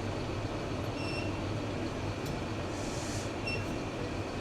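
Potato harvester and tractor running side by side, a steady mechanical rumble with rattling, as potatoes are loaded straight into the trailer. Short high tones sound about a second in and again near the end.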